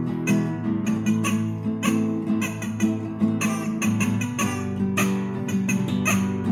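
Acoustic guitar played fast with a pick: quick, sharply attacked single notes and chords in a country chicken-pickin' style.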